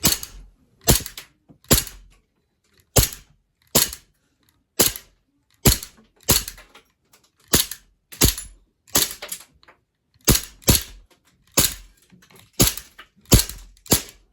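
Airsoft Sig Sauer P229 green-gas blowback pistol fired semi-automatically about eighteen times. Each shot is a sharp crack, coming at an uneven pace of about one every half second to a second.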